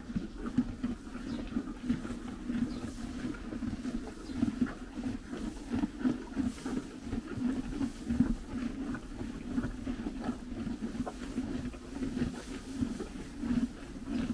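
Horses chewing hay up close, an uneven, continuous crunching and grinding of several mouths at once, with dry hay rustling as they pull at it.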